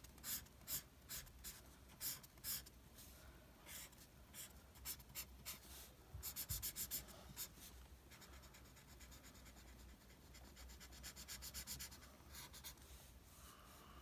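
Felt-tip marker scratching on paper as a drawing is coloured in, faint. Separate strokes at first, then faster back-and-forth scribbling in the middle and later part.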